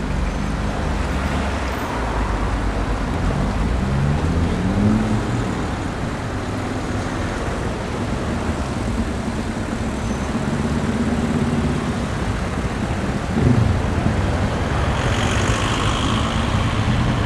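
Fast-flowing stream rushing steadily over stones below a footbridge, an even unbroken rush of water.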